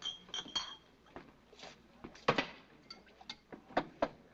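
Glassware and dishes clinking and knocking behind a soda fountain counter: three quick ringing clinks at the start, then scattered clatter, loudest about two seconds in.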